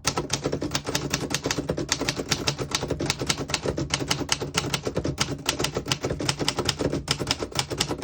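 1933 Royal P portable typewriter being typed on at a fast, steady pace, a continuous run of typebar strikes at about six keystrokes a second.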